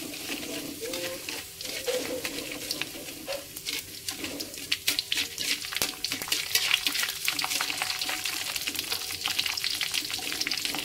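Whole peppercorns and coriander seeds sizzling and crackling in hot oil in a wok, pushed around with a metal spatula. The crackling grows busier about halfway through.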